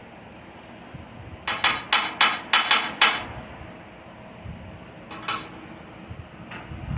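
A hammer striking metal: a quick run of about eight ringing blows, then two more a couple of seconds later.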